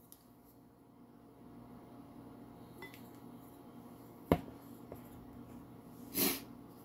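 A measuring spoon knocks once, sharply, against a small glass bowl a little past midway. There is a faint ringing clink before it and a short scrape near the end, over a quiet low hum.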